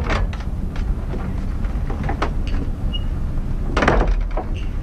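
A wooden door being handled and opened or shut: a few short clicks and knocks, the loudest about four seconds in, over a steady low rumble.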